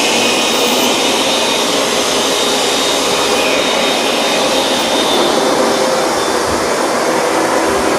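Hoover Dual Power Max upright carpet cleaner running, a steady motor and suction noise with faint whining tones over it.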